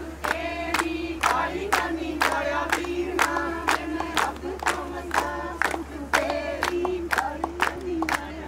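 Party music with a fast, steady drum beat of about three strikes a second and several voices singing over it, above a steady low hum.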